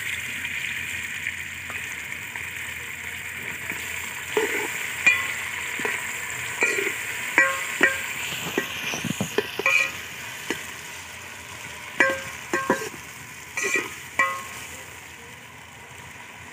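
Chopped tomatoes sizzling in hot ghee in a large metal pot, stirred with a metal spoon that knocks and scrapes against the pot, each knock ringing briefly. The knocks come in clusters between about four and fourteen seconds in, and the sizzle dies down near the end.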